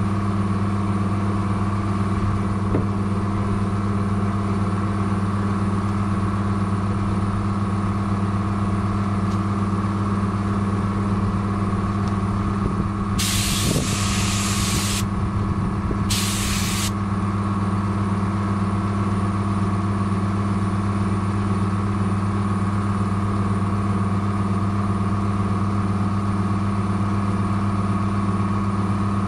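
Compressed air hissing from a hand-held air gun in two short blasts a little under halfway through, the first about two seconds long, the second briefer, over a steady machine hum.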